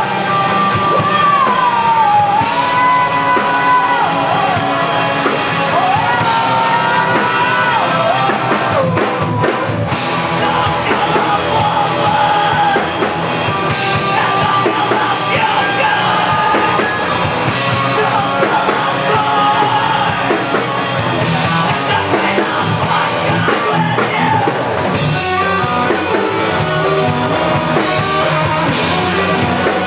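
Rock band playing live: drum kit and electric guitars with a singing voice over them.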